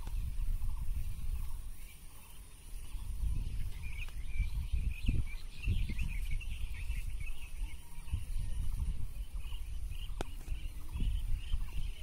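Wind gusting against the microphone, with a rapid run of high chirping animal calls coming in about a third of the way through and carrying on.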